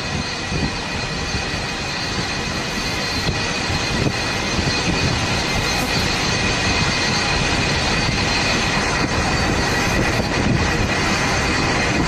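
Warship under way in heavy sea: a steady rush of wind and water noise with thin high whining tones over it, slowly growing louder.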